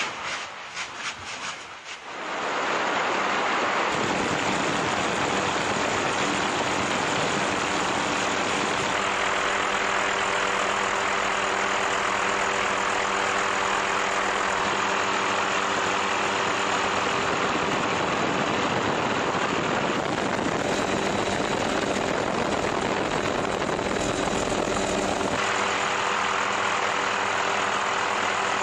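A lava fissure spattering, with quick bursting pops, for about the first two seconds. Then a steady aircraft engine drone with a few fixed low tones sets in and runs on.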